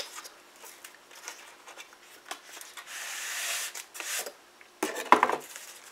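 Taped-up styrofoam packaging being handled: scattered rubbing and small clicks, then a longer scraping stretch about three seconds in.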